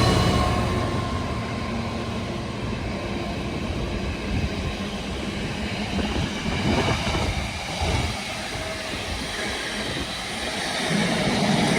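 Container wagons of an intermodal freight train rolling past: a steady rail rumble with irregular wheel knocks and clatter over the track.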